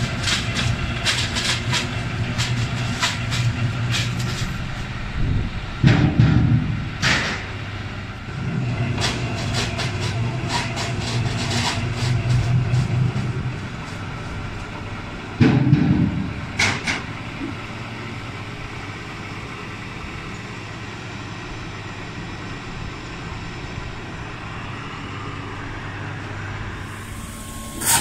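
Log debarker on a veneer peeling line running with a steady low motor hum and rapid knocking and clattering of wood. Two heavy thumps come about six and fifteen seconds in. After that the clatter dies down to steadier running.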